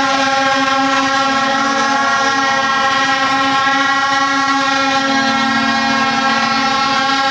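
Horns blown by a protesting crowd, making one loud, unbroken drone on a single steady pitch with many overtones.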